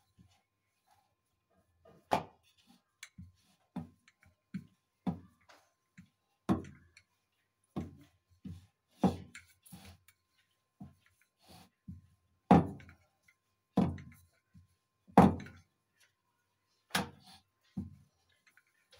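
Wooden rolling pin knocking and thudding on a round wooden board as a large sheet of gol gappa dough is rolled out. The knocks are irregular, about one a second, starting about two seconds in, with several louder ones.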